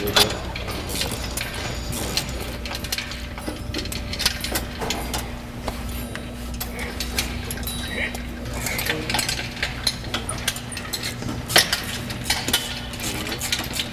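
Scattered metallic clinks and clicks of hand tools and fittings being worked on a jet engine, with sharper knocks near the start and about four-fifths of the way through. Underneath is a steady low hum.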